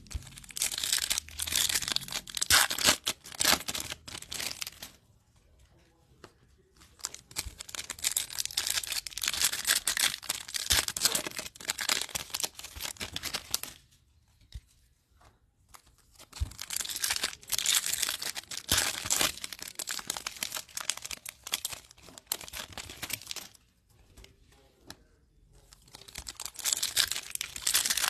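Topps Chrome trading-card packs being torn open and their foil wrappers crinkled by hand. The tearing and crinkling comes in four stretches of several seconds each, with pauses of a second or two between them.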